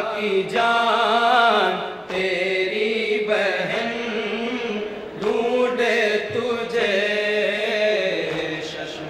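Men's voices chanting an Urdu noha, a Shia lament for Husain, in long held, wavering lines with short breaks between phrases and no instruments.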